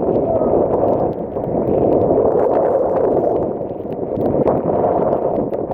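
Wind buffeting the microphone of a moving motorcycle as a steady, heavy rushing noise, with no separate engine note standing out.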